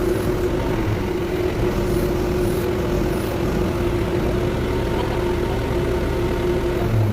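Heavy engine idling steadily: a constant whine over a low rumble.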